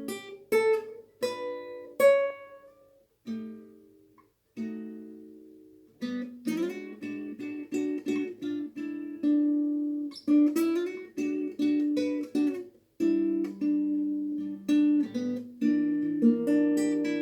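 Acoustic guitar playing solo. It opens with a few plucked single notes and two chords left to ring about three and four and a half seconds in, then settles into a steady fingerpicked pattern of broken chords.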